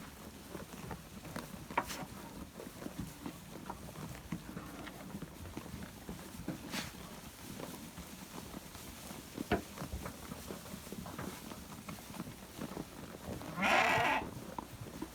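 A sheep bleats once near the end, a short wavering call. Before it there are only scattered light knocks and rustles.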